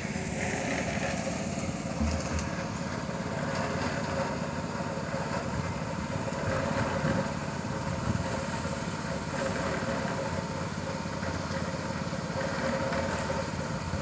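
Small engine of a portable drum concrete mixer running steadily at a constant speed, with an even hum and no change in pitch.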